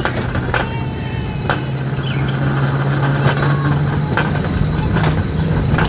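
Mountain coaster sled running down its tubular steel rail track: a steady rolling rumble and hum from the wheels on the rails, with sharp clicks roughly every second.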